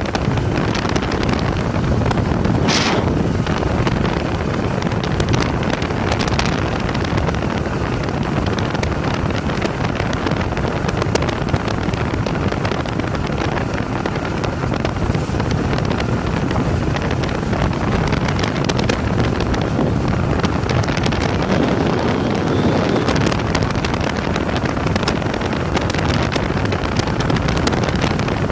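Steady wind rushing over the microphone of a moving motorcycle, with the bike's running and road noise underneath.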